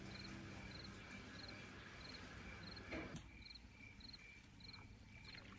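Faint cricket chirping in the background, short pulsed chirps repeating evenly about every half second. A brief click comes about three seconds in.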